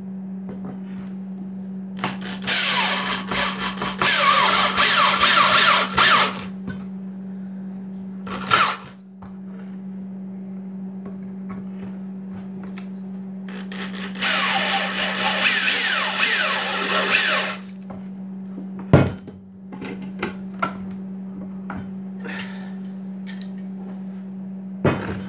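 Corded electric drill driving screws into wood in two runs of about four seconds each, its motor pitch falling as the screw bites in. A few short knocks between the runs.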